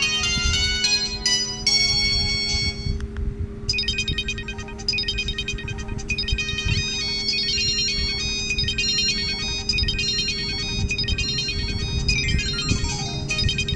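Samsung GT-E1195 mobile phone ringtones: electronic melodies of short, quick notes. One tune gives way to another about three and a half seconds in, a fast repeating high pattern that ends in a quick descending run of notes. A steady low hum lies underneath.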